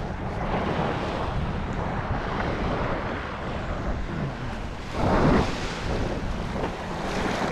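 Wind buffeting the microphone over small surf waves washing onto a sandy beach, with a louder rush about five seconds in.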